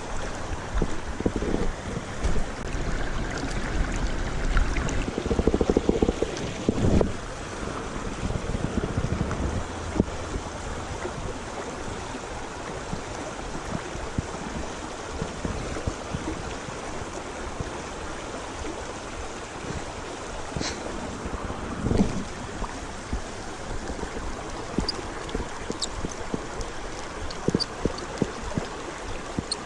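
Creek water rushing steadily, with wind buffeting the microphone in low gusts for the first several seconds and a couple of brief knocks.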